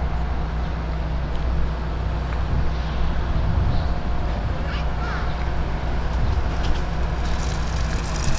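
Steady low engine hum, with a few faint short chirps from birds in the middle.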